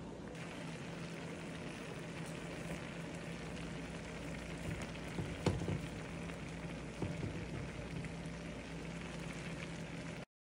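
Asparagus steaming in a frying pan over a little water, the water sizzling and bubbling steadily under a faint low hum. A couple of light knocks come about five and a half and seven seconds in, and the sound cuts off suddenly near the end.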